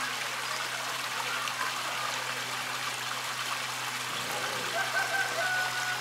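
Water trickling and splashing steadily from a fountain, with a faint steady low hum beneath it.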